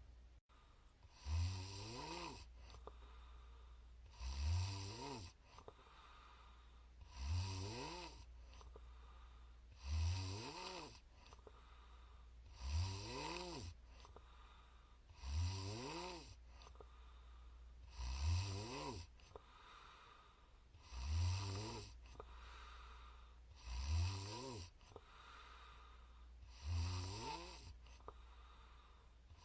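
A woman snoring steadily, about one snore every three seconds, each snore rising in pitch, over a steady low hum.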